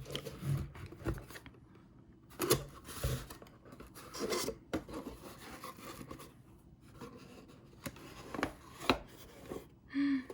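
Double-layered packaging being unwrapped by hand: irregular rustling and scraping of the wrapping, with a few sharp clicks.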